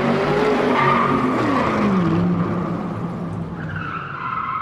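A car's engine note dropping in pitch, then a high-pitched tyre squeal rising in over the engine near the end.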